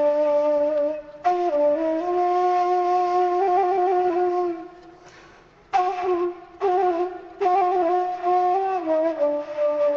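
Background music: a single wind instrument playing a slow melody of long held notes with some quick ornamental wavering, broken by short pauses and a gap of about a second near the middle.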